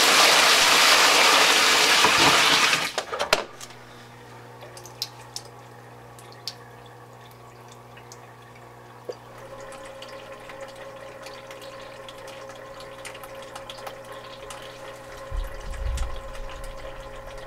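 Water rushing loudly for about three seconds, then a steady low hum from the flood table's pump with faint trickles and drips as water starts to come up the fill pipe into the empty tray.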